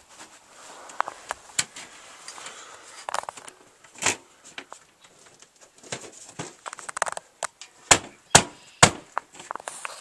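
Knocks and clanks on an aluminium scaffold tower with shuffling steps as someone moves on it. The three loudest knocks come in quick succession near the end.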